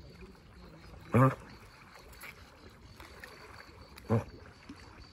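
Soft water sloshing from swimming, broken twice, about three seconds apart, by a short, loud call in a low adult voice.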